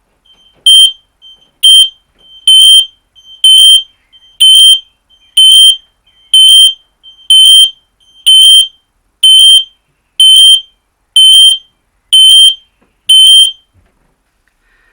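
Battery-operated, radio-interlinked smoke alarm sounding its alarm under test: a loud, high-pitched beep about once a second for some thirteen seconds, then stopping. The alarm is set off to check the radio interlink between the detectors.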